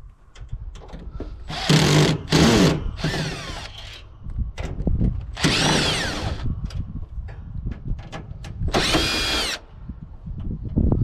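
Power drill running in several short bursts, its pitch rising and falling as the motor speeds up and slows, with small clicks and knocks between the bursts.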